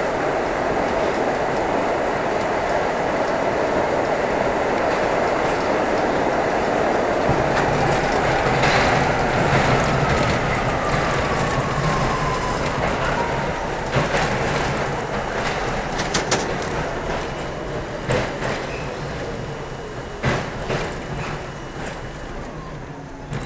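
R32 subway train running through a tunnel, heard from inside the car: a steady rumble of wheels on rail, with a thin whine falling in pitch about halfway through. Sharp clicks come every couple of seconds in the second half as the sound grows quieter.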